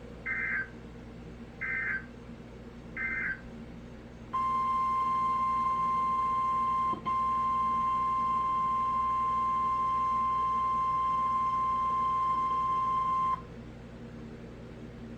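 Emergency Alert System audio from a weather radio: three short warbling data bursts about a second and a half apart, then a single steady 1050 Hz warning alarm tone for about nine seconds, with a brief dropout about a third of the way through. Faint low hum underneath.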